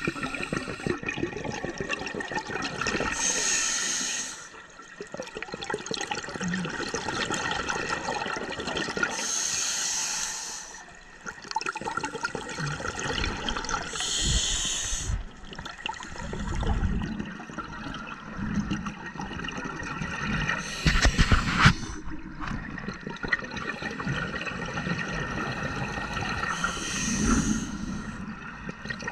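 Scuba diver breathing through a regulator underwater: a hiss with each breath about every five to six seconds, with bubbling of exhaled air in between, heard through the camera's underwater housing.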